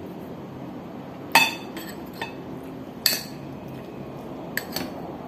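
A metal spoon clinking against a ceramic bowl, about six separate clinks, the loudest about a second and a half and three seconds in.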